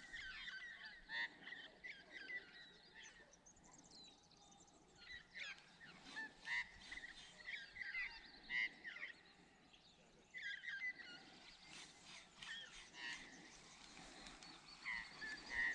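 Birds calling, faint: short repeated calls in scattered clusters, some with quick pitch slides.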